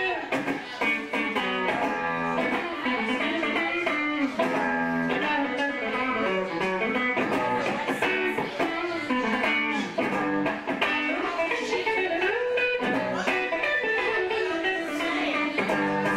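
Electric guitar played live through an amplifier: a busy, bluesy lead line of quickly picked notes, with a few bent notes sliding in pitch near the end.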